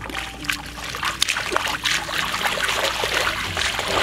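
Bare hands digging and scooping through wet mud and shallow muddy water: irregular squelches and small splashes.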